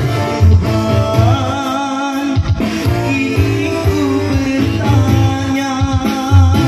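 A song with a singer holding long, wavering notes over a steady bass beat.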